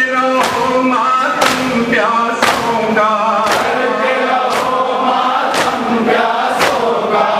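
A man leads a Shia noha lament into a microphone while a crowd of men chants along. Their chests are struck in unison about once a second, in time with the chant (matam).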